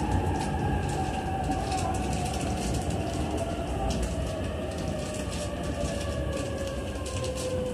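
JR East E531-series electric train slowing through a station, heard from inside the car: a whine from the traction motors falls slowly and steadily in pitch as it brakes, over the steady rumble of the wheels on the rails.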